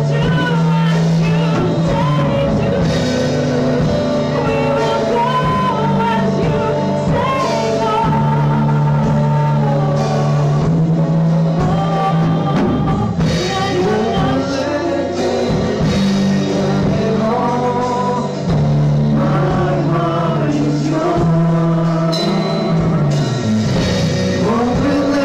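Live church worship band playing a praise song: women singing lead and harmony into microphones over electric guitar and keyboard, with long held low notes underneath.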